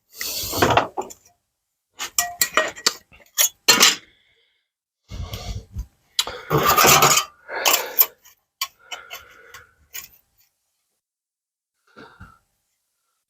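Steel sheet from a scrap van roof being cut into a repair patch: several short, irregular bursts of cutting noise with sharp metallic clicks between them.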